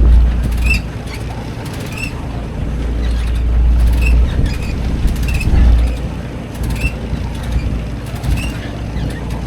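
Wind buffeting the action camera's microphone: a low rumble that swells and eases, loudest in the first second and again around four to six seconds in. Short high chirps come every second or two.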